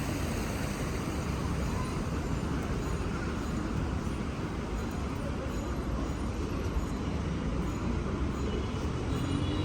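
Steady city street traffic noise: road vehicles running past, heaviest in a low rumble, with no single event standing out.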